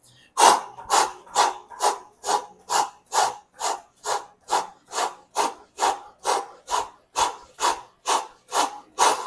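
A person doing fast mountain climbers on an exercise mat: twenty short, even, rubbing strokes, a little over two a second, one for each switch of the legs.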